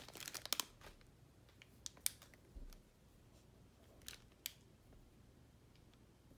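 Handling noise: a crinkly rustle with quick clicks in the first second, then a few isolated light clicks, over faint room tone.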